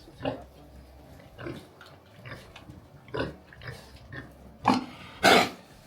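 Pigs grunting in short, separate calls about once a second, with a louder, longer call about five seconds in.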